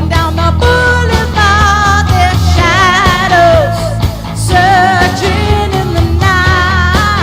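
Karaoke singing: a solo vocalist holds long notes with a marked vibrato over a backing track with a steady bass.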